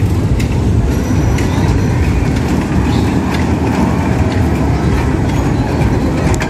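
Outdoor fairground background noise: a loud, steady low rumble with faint scattered clicks.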